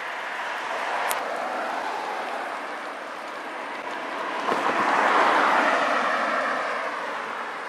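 Road traffic: a vehicle passes about halfway through, its tyre and engine noise swelling and fading over a steady rush of traffic.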